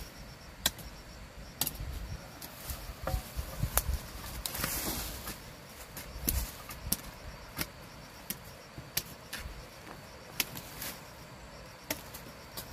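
Irregular sharp knocks and clicks, a dozen or so spaced unevenly, with a brief rushing noise about four and a half seconds in, over a faint steady insect chirring.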